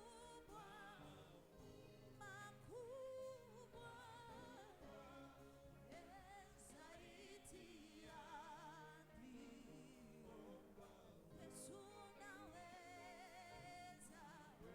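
Faint worship singing with vibrato over instrumental accompaniment.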